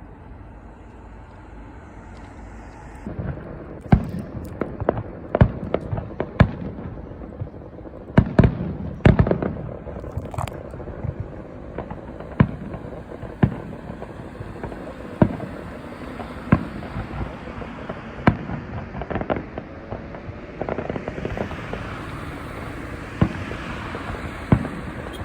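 Aerial fireworks shells bursting in an irregular string of sharp bangs, starting about three seconds in. Near the end there is a dense crackling of sparks.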